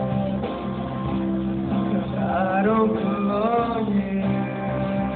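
Live rock band playing: strummed guitar chords held steady under a singing voice that comes in about two seconds in and holds a line for a couple of seconds.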